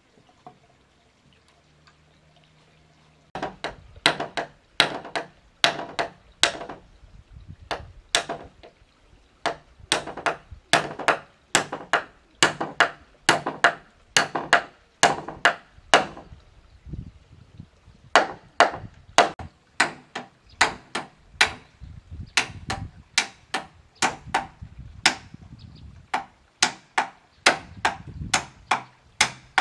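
A hand tool striking wood over and over in sharp blows, about two a second. The blows begin about three seconds in and pause briefly around the middle.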